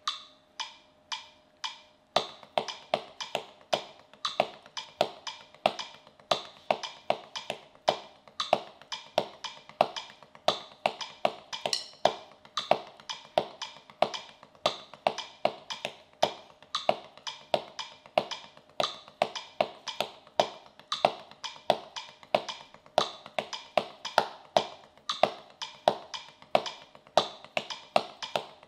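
Wooden drumsticks playing a fast, steady stream of double strokes (RRLL) on a Reflexx drum practice pad, with an accent on every third stroke so the doubles sound like triplets. A few evenly spaced light clicks come first, and the playing starts about two seconds in.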